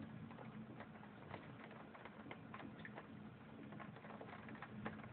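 Faint, irregular patter of raindrops from a thunderstorm, many small scattered ticks over a low hum.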